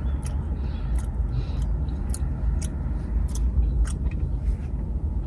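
A person chewing a mouthful of fish sandwich close to the microphone: a string of short, wet mouth clicks about twice a second over a steady low rumble.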